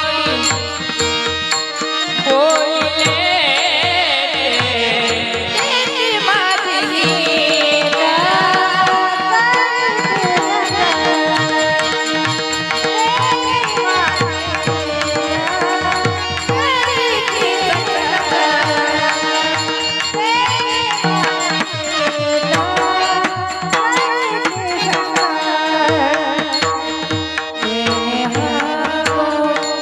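Devotional Marathi kirtan music: a voice sings a gliding, ornamented melody over steady held notes and tabla drumming.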